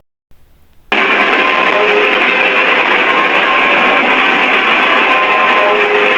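Loud, harsh, distorted sound starting suddenly about a second in after a brief silence, then holding steady with faint tones under the noise.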